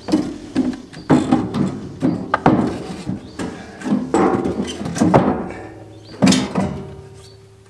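Wooden boards knocking and clattering as they are handled and set down in a steel-sided box trailer: a series of hard thunks, some with a brief ringing tail, dying away near the end.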